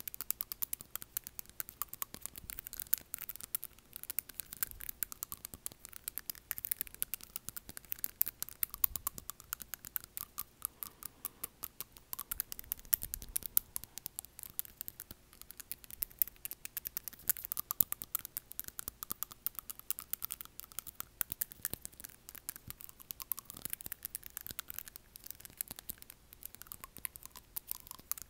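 Long acrylic fingernails tapping on front teeth, close to a wired earbud microphone: a dense, continuous run of small sharp clicks.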